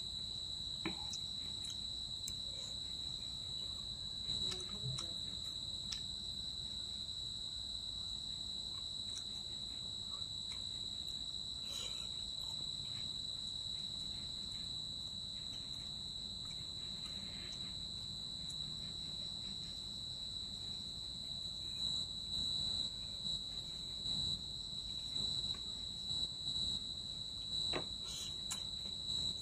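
A steady high-pitched insect trill that runs throughout and breaks into pulses in the last few seconds. A few faint soft clicks sit under it.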